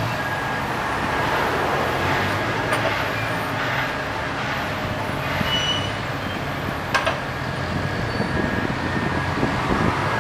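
Diesel engine of the SPMW 8000 rail crane running steadily, with a couple of sharp metallic clicks, one near three seconds in and another near seven seconds in.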